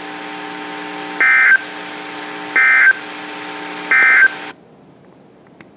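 NOAA Weather Radio EAS end-of-message signal: three short bursts of digital data tones, about a second and a third apart, over a steady hum on the radio channel. This marks the end of the alert. About four and a half seconds in, the broadcast cuts off, leaving faint hiss.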